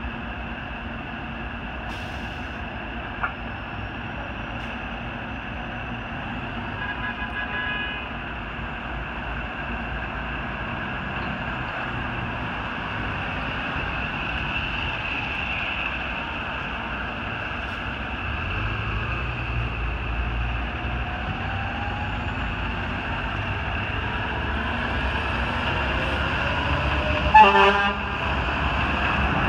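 Diesel engine of a fire department aerial ladder truck running as it pulls out and drives past, getting louder over the last several seconds. A short horn toot sounds near the end.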